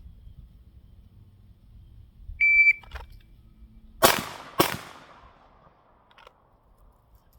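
Shot timer start beep, then about a second and a half later two pistol shots about half a second apart, each ringing out briefly after the crack. The last shot falls 2.2 seconds after the beep.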